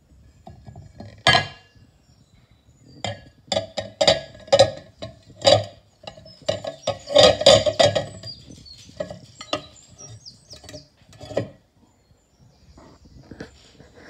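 Irregular knocks, clicks and rustles of things being handled close to the microphone: a thick cluster in the middle, with single knocks near the start and near the end.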